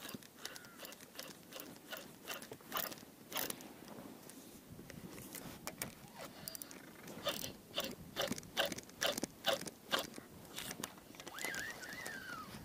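Spinning reel and rod handled through a cast and retrieve, giving a run of irregular clicks and ticks that comes thickest in the second half. Near the end there is a short call that rises and falls.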